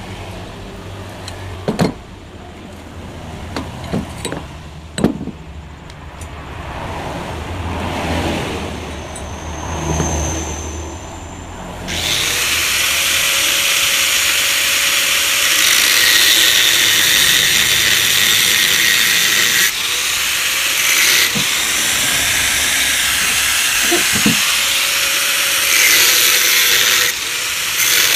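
Scattered metal knocks over a low steady hum, then from about twelve seconds in a power tool, most likely an angle grinder, starts cutting into the steel exhaust muffler of a Yamaha RX-King. The cutting is a loud, steady grinding with a couple of brief dips.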